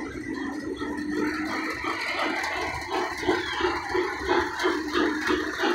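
A model train running on the layout: a low rumble and rattle of wheels on track.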